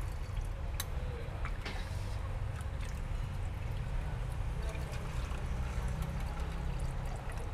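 Chocolate drink poured from a metal ladle into a stainless steel cup in a thin trickling stream, with a couple of sharp metal clinks near the start. A steady low rumble runs underneath.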